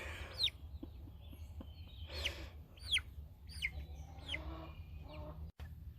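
Six-week-old Cochin chicks peeping: about half a dozen short, high peeps, each falling in pitch, spaced out over a few seconds.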